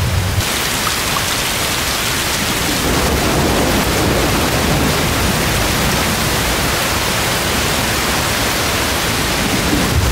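Heavy rain falling onto water, a loud, steady, even hiss that sets in about half a second in.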